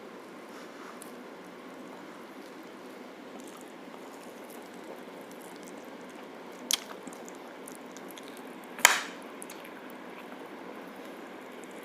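Eating at the table: a steady background hiss, then two sharp clinks of tableware partway through. The second clink is the louder and rings briefly.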